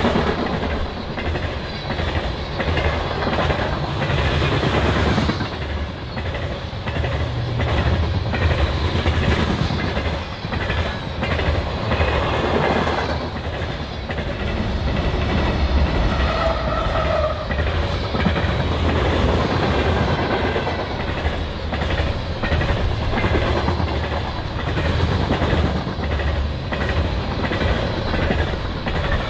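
BNSF unit grain train of covered hopper cars rolling past, steel wheels clicking steadily over the rail joints under a constant low rumble. A mid-train set of distributed-power diesel locomotives goes by about halfway through.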